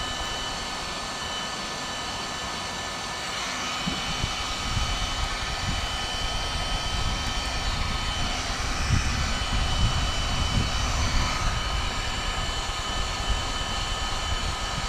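Electric heat gun running steadily, its blower giving a steady hiss with a high motor whine as it warms a stiff black poly pipe to soften it. An uneven low rumble joins from about four seconds in.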